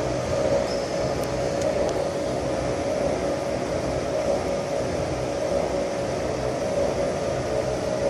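Steady hum of idling factory machinery, a constant drone with no press strokes or impacts.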